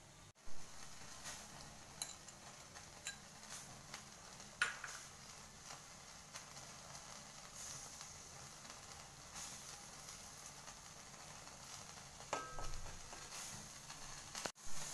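Marinated chicken pieces with butter melting on them sizzling on a wire grill over hot charcoal: a steady hiss with scattered crackling pops, a few sharper ones. A brief ringing tap near the end.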